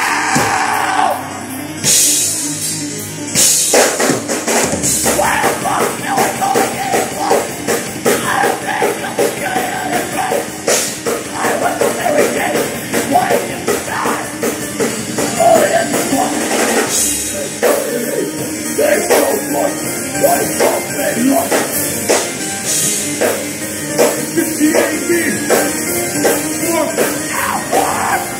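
Live band playing loud rock music, with a drum kit hitting throughout.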